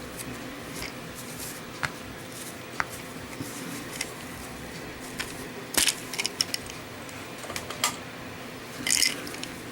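Scattered small clicks and brief rustling scrapes from handling the Zippo Typhoon match kit and its matches, with a cluster of scrapes about six seconds in and another near the end, over a faint steady hum.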